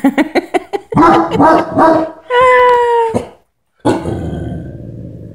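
Great Dane puppy barking at her reflection in glass: a quick series of short barks, then one long, drawn-out howling bark, followed by a noisy rush of movement that fades.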